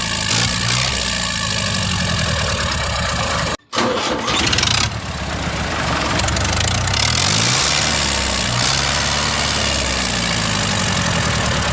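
A mini tractor's engine running, its speed rising and falling, with a brief cut in the sound about a third of the way through.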